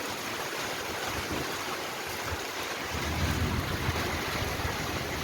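Heavy rain falling hard, a steady hiss, with a low rumble growing a little stronger about three seconds in.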